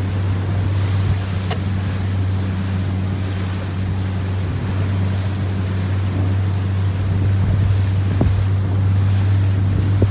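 Ribeye A600 RIB's outboard motor running at low revs, a constant low hum, with wind buffeting the microphone and the sound of the surrounding sea.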